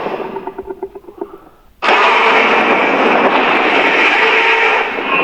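Titanus Godzilla roar sound effect from the Legendary MonsterVerse films. A fading, pulsing call dies away, then a loud, harsh roar starts suddenly about two seconds in and holds for about three seconds.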